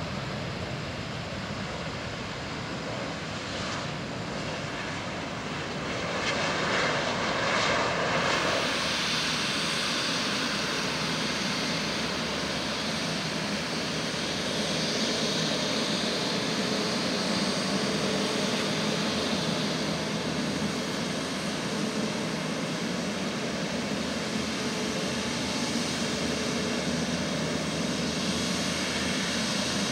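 Airbus A350-941's Rolls-Royce Trent XWB jet engines running at low ground power as the airliner rolls past, a steady rumble with a faint high whine. The sound swells louder about six seconds in.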